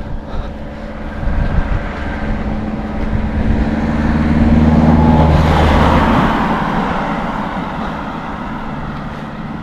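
A motor vehicle passing close by: its engine hum and road noise grow louder, peak about halfway through, then fade away.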